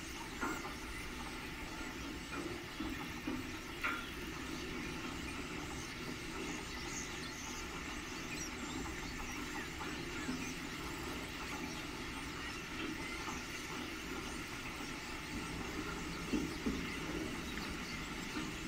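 A huge flock of common starlings chattering and squeaking all at once in a dense, continuous din, with a few louder close calls about four seconds in and again around sixteen seconds in.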